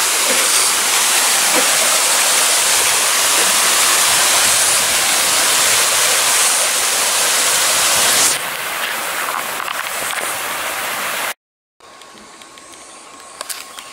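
Water pouring over a small concrete weir in a stream, a loud steady rush. It eases a little about eight seconds in and cuts off near the end, giving way to a much quieter background with a faint steady high tone.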